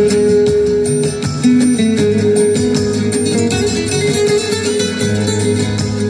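Background music: a flamenco-style acoustic guitar piece with quick plucked notes.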